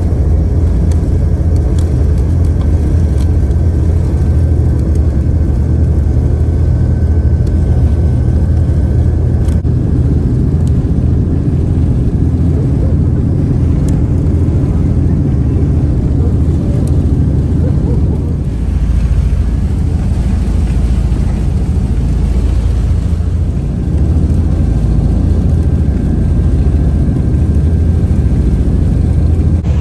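Engines of a fast passenger ferry running steadily under way at speed, heard inside the cabin as a loud, even, low drone.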